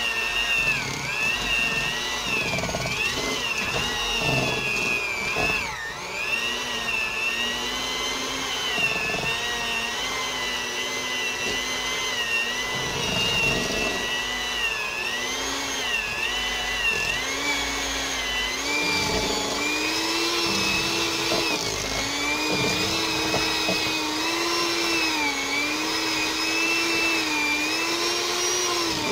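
Electric mixer beating room-temperature cream cheese until smooth. Its motor whine wavers up and down in pitch as the load on the beaters changes.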